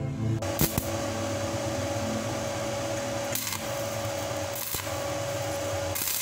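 Stick (arc) welding on steel: the electrode's arc crackling and sizzling steadily from about half a second in, with a steady tone underneath and a few sharper pops.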